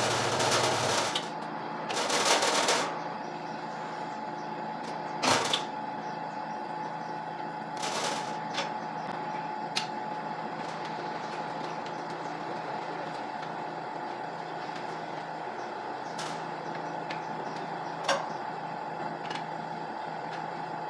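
Steady hum with a faint steady tone, broken by a handful of scattered sharp clicks and knocks.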